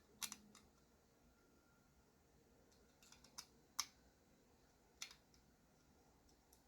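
A few light, sharp clicks and taps, spaced irregularly a second or more apart, from small metal knife parts and tools being handled during assembly; otherwise near silence.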